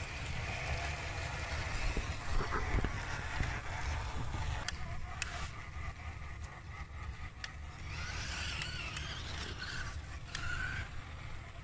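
Electric RC tracked truck built from Fayee truck parts crawling over sandy dirt: its small motors and gears run with a faint whine and the tracks work over the ground, over a steady low rumble.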